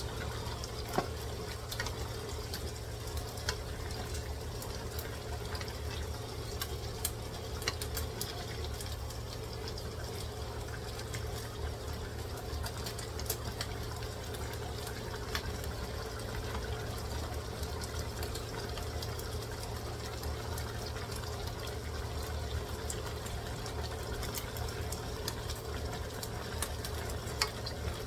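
Chicken cooking on the stove: a steady sizzle and bubbling with scattered sharp pops, over a low steady hum.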